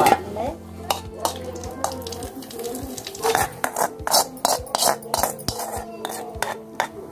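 Metal cookware clattering and clinking: pots, lids and utensils knocked together in a string of sharp, irregular knocks.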